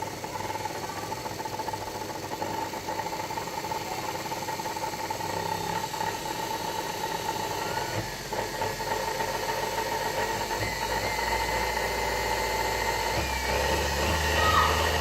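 Washing machine universal motor running on a TDA1085 speed-control circuit, with a steady high tone over the motor's hum. Its speed steps up about halfway through and again near the end, growing slowly louder.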